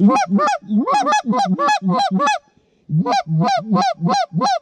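Goose call blown in rapid, loud honks and clucks imitating Canada geese, about four notes a second, each note jumping up in pitch. The notes come in two runs with a short break around the middle.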